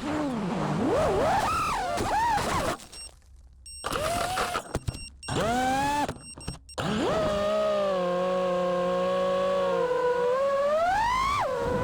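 Brushless motors and propellers of a 6S 5-inch FPV freestyle quadcopter whining, the pitch sweeping up and down with the throttle. Between about 3 and 7 seconds in the sound drops almost away twice as the throttle is chopped, with short rising bursts between, then a steady whine and a sharp rise in pitch near the end.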